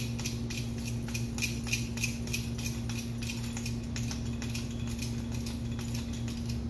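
Hand pump of a cooling-system pressure tester being worked about three times a second, each stroke a short hiss. It is pressurising the engine's cooling system to see whether it holds pressure, a check for a blown head gasket. A steady low hum runs underneath.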